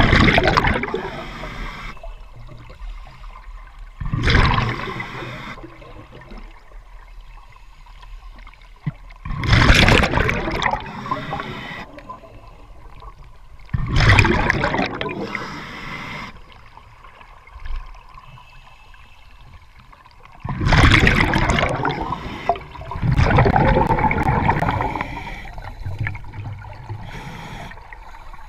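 Scuba diver breathing through a regulator underwater: loud rushes of exhaled bubbles every few seconds, about six in all, with quieter stretches between.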